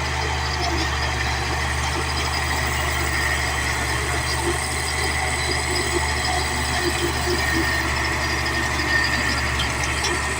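Caterpillar D8 bulldozer's diesel engine running steadily, with a steady high whine over the low engine drone.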